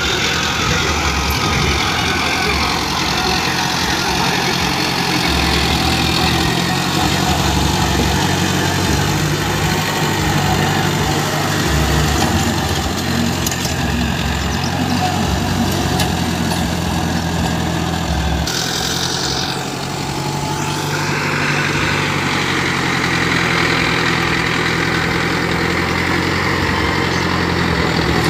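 Mahindra Arjun Novo tractor's diesel engine running steadily under load while it drives a rotary tiller through the soil.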